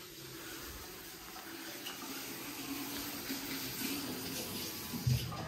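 Water running steadily from a tap, with a short thump near the end.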